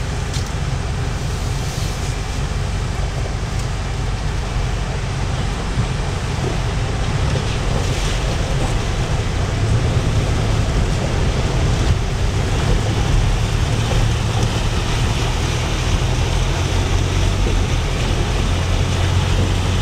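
Inside the cab of a 4x4 fording a river: the engine's low drone runs under a steady rush of water splashing against the vehicle, the engine growing a little louder about halfway through.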